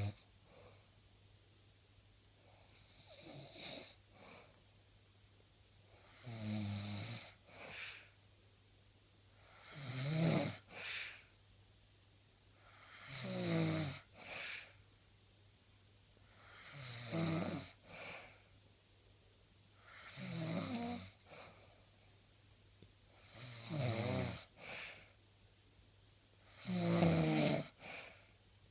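A sleeping person snoring: eight rasping snores, about one every three and a half seconds, each followed by a short breath sound.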